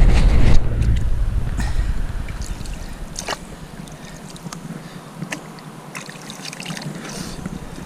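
Wind rumbling on the microphone for the first two seconds, then fading, under small splashes and trickling of river water at the bank, with a few sharper splashes around three and five seconds in.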